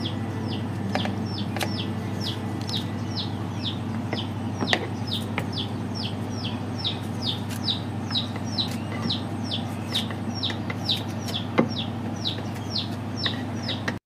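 A bird chirping over and over in short falling chirps, about three a second, over a low steady hum. A couple of sharp knocks stand out, one near the middle and one about two and a half seconds before the end.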